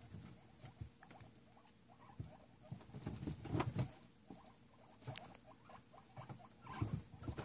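Guinea pigs in their cage making short, irregular low calls and scuffling noises, in clusters that are loudest about three and a half seconds in and again near the end.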